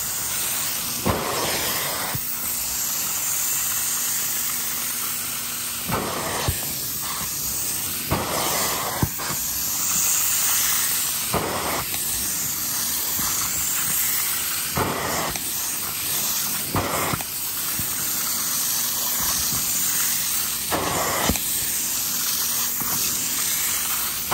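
Hot-water extraction upholstery tool drawn over a fabric sofa cushion: a steady suction hiss, with short louder rushes of air and water several times as the tool is worked across the fabric.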